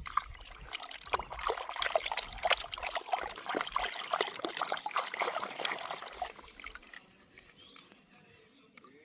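Water trickling and splashing, a dense run of small irregular splashes that fades away about six to seven seconds in.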